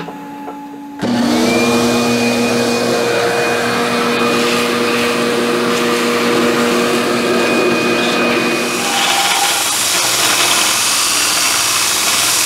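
A shop vacuum switches on about a second in, its motor whining up to speed and then running steadily as its hose sucks steel chips away from the end mill. About nine seconds in the whine stops and a belt grinder is heard grinding a steel plate.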